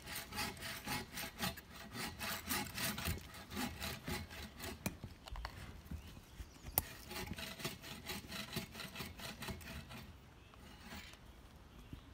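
Bow drill for friction fire-making: a wooden spindle rubbing in a divot in the fireboard as the bow is drawn back and forth in rhythmic strokes, working to make the divot smoke. The strokes pause briefly with a sharp click around the middle, then stop about ten seconds in.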